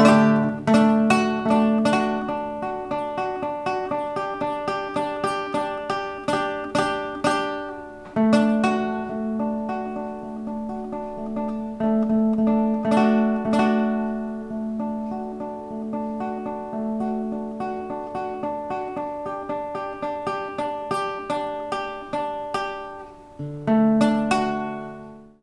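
Instrumental music on a plucked string instrument such as a guitar, playing a picked melody over held chords. A final strummed chord near the end rings out and fades.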